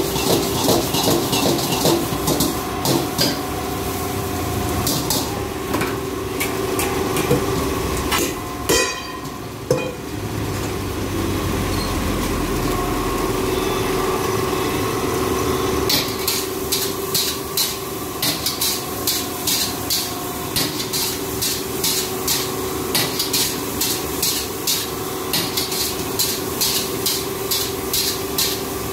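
Metal ladle clattering against a wok as rice is stir-fried over a gas burner, with sizzling underneath. The strikes come in quick runs of about two to three a second, thin out for a few seconds near the middle, and pick up again for the second half.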